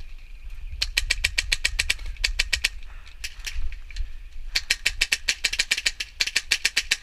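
Airsoft gun firing on full auto: two long bursts of rapid clicking shots, the first starting about a second in and the second from about halfway, with a few single shots between.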